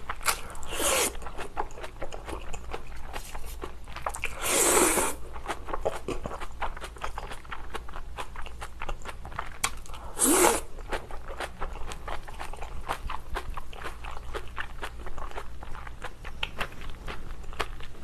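Close-miked slurping of shrimp noodle soup noodles, with wet chewing and mouth clicks throughout. Three longer, louder slurps come about a second in, at around four to five seconds, and at about ten seconds.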